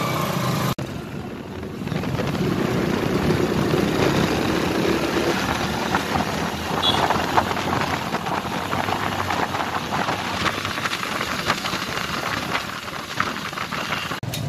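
Engine running and wind buffeting the microphone while riding along a road behind a motorcycle; a steady, dense rush of road noise.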